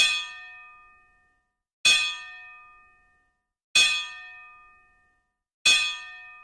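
A bell-like metallic chime struck four times, about every two seconds, each ring dying away before the next.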